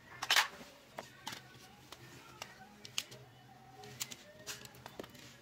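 Plastic clicks and rattles from a toy airsoft pellet pistol and its magazine being handled: a louder scraping click about half a second in as the magazine comes out, then single clicks every half second to a second as the magazine is worked by hand.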